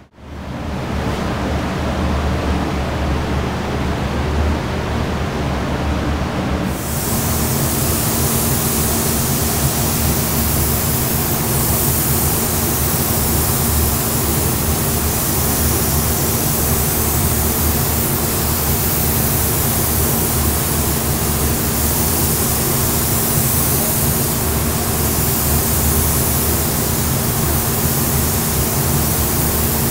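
Gravity-feed paint spray gun spraying clear coat over a car door: a steady rushing hiss of compressed air and atomised paint that gets suddenly brighter and stronger about seven seconds in, under a steady low hum. This is the light tack coat of clear that goes on before the full wet coats.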